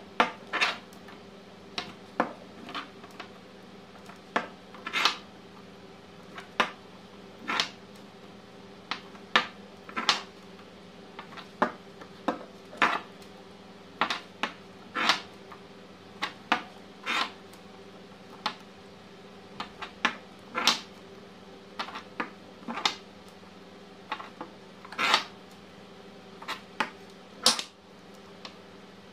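18650 lithium-ion cells clacking as they are picked up and set down one by one on a wooden table, and the multimeter probe tips tapping their metal ends: sharp, irregular clicks about once or twice a second, over a faint steady low hum.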